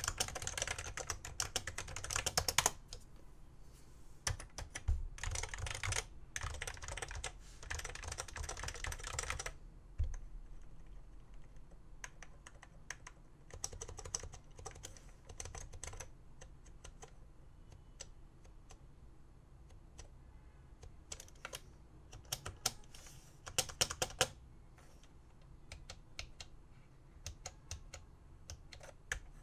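Typing on a 1991 BTC 5139 keyboard with BTC conductive rubber dome switches. There are quick, steady runs of keystrokes for the first nine seconds or so, then slower, scattered key presses with a short flurry about two thirds of the way in.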